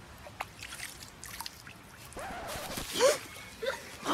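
Water splashing and dribbling in a shallow stream as hands and a bare foot are washed in it, the foot-washing of Islamic ablution (wudu). The splashing grows louder after about two seconds, with a short voice sound about three seconds in.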